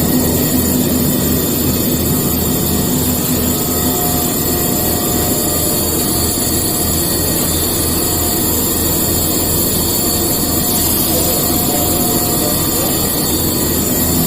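CNC milling machine running a machining cycle: a steady machine hiss and hum with a low pulse about three times a second.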